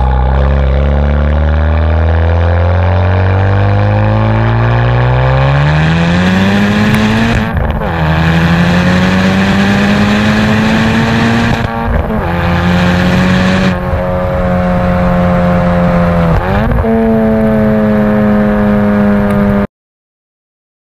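Honda Civic Type R FK8's 2.0-litre turbocharged four-cylinder, heard through a Remus exhaust with its valve open, accelerating hard: the engine note climbs steadily through the revs, breaks briefly three times for upshifts and climbs again after each. It cuts off abruptly near the end.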